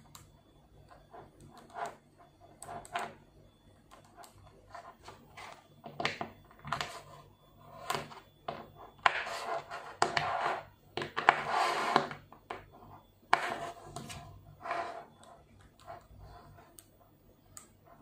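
Small 5 mm neodymium magnetic balls clicking as they snap against each other, in irregular single clicks, with a louder stretch of rattling and rubbing about halfway through.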